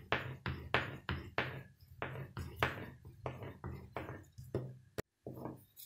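Thin wooden rolling pin rolled back and forth over dough on a floured countertop: a regular rubbing stroke about three times a second. A single sharp click comes near the end.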